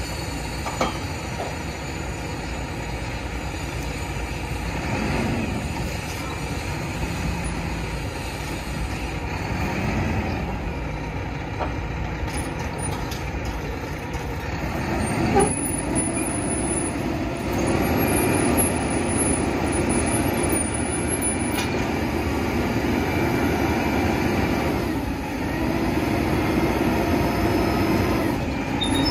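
Diesel engine of a roll-off garbage truck running steadily. A single sharp knock comes about halfway through, after which the engine grows louder.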